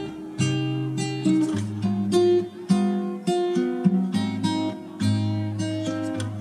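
Background music: an acoustic guitar picking and strumming chords in a steady run of notes.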